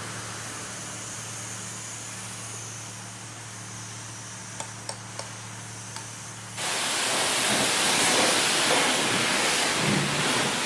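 Self-service car wash bay: a steady low machine hum with a few light clicks, then about two-thirds of the way in a high-pressure water wand starts spraying abruptly, a loud, dense hiss of water that carries on.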